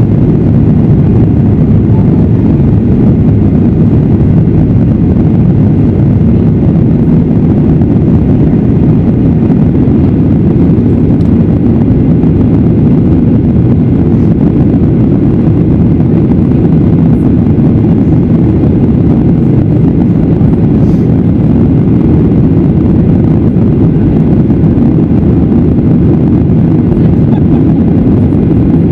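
Steady, loud cabin rumble of a Boeing 737-800 in its climb after takeoff: the CFM56-7B engines and airflow heard from a window seat over the wing, low and even throughout.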